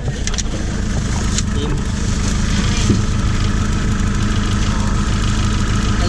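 A 1945 Willys jeep's engine running steadily as the jeep drives along a dirt track, under a constant wash of road and wind noise. A few sharp knocks sound in the first second and a half.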